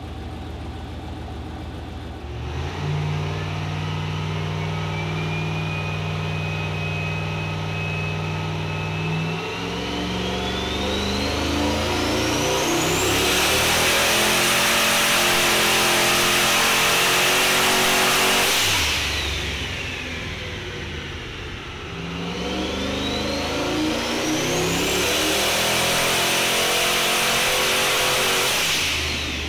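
Turbocharged Valiant drag car on a chassis dyno. The engine runs steadily for a while, then makes two full-throttle pulls: the engine note and a high whine climb together to the loudest point, then drop away abruptly as the throttle is closed, about two-thirds of the way in and again at the very end.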